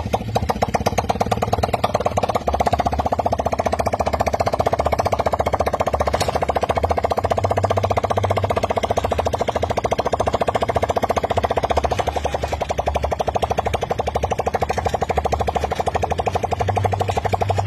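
Piston engine of a homemade helicopter running steadily, a rapid, even stream of firing pulses.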